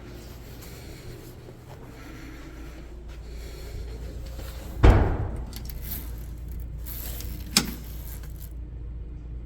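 A payphone handset being handled over a steady low hum: a heavy clunk about five seconds in as the receiver comes off its hook, then a sharp click a few seconds later. The line is dead, with no dial tone.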